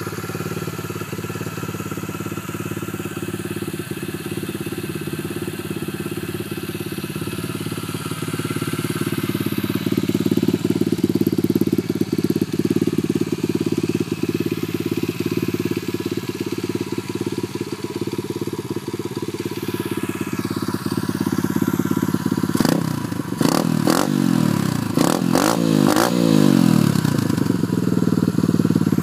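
Pit bike's 125cc Lifan four-stroke single-cylinder engine running with a deep exhaust note, idling steadily and then revved up and down several times in quick succession near the end.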